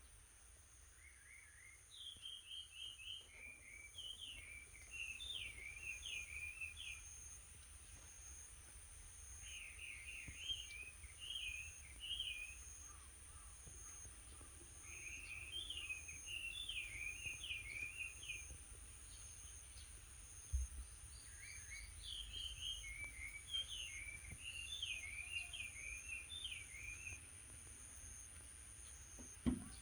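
A songbird singing in four bouts of rapid, quick-note phrases a few seconds apart, over a steady high-pitched drone.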